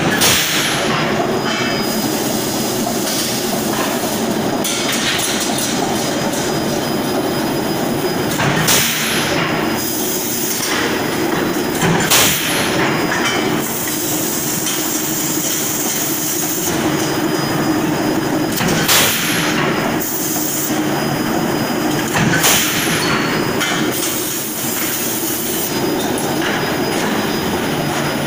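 Steady, loud machinery din in a hot forging shop, with a handful of sharp strikes and short hissing surges spread a few seconds apart.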